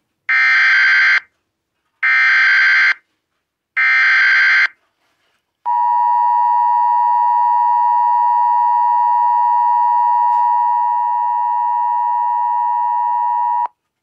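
Emergency Alert System SAME header data bursts: three harsh, buzzy digital bursts of about a second each, roughly two seconds apart, marking the start of a new alert. About six seconds in, the EAS two-tone attention signal begins and holds steady for about eight seconds before cutting off suddenly.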